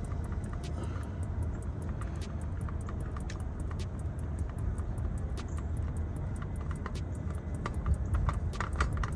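Rain falling in many sharp, irregular ticks over a steady low rumble, with a few louder clicks of handling near the end.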